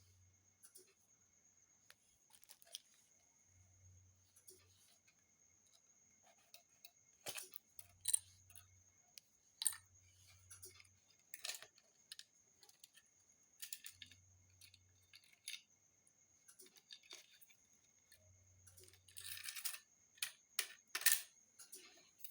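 Scattered faint clicks, taps and scraping of tools prying the old glued-in screen off an Infinix Hot 10 Play phone's frame, with a longer scraping stretch and a few sharper clicks near the end.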